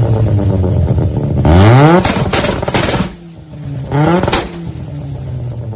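Mazda RX-7 FD's twin-rotor rotary engine, heard through a large single-tip exhaust, blipped twice from idle. About a second and a half in the revs rise quickly, then a run of sharp pops follows as they fall back. A second, shorter blip comes about four seconds in, before the engine settles back to idle.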